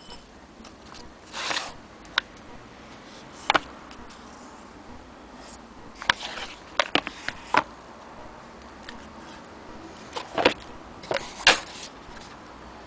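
Scattered knocks and clicks of a wooden sewing-machine base and its metal fittings being handled, about a dozen, the loudest two near the end.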